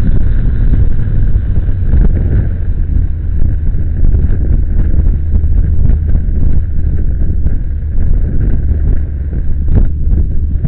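Motorcycle riding along at road speed, heard from a camera on the bike. Heavy, steady wind rumble on the microphone is mixed with engine and road noise.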